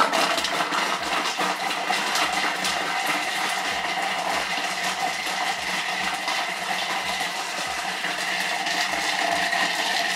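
Thermomix mixing bowl blades spinning fast, chopping truffle pieces: a loud whirring with a bumpy rattle of the pieces hitting the blades and bowl, switched on abruptly, which grows smoother as the truffle gets chopped finer.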